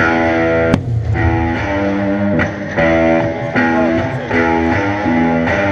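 Band music led by electric guitar playing sustained chords that change every half second or so, with a single sharp hit about three-quarters of a second in.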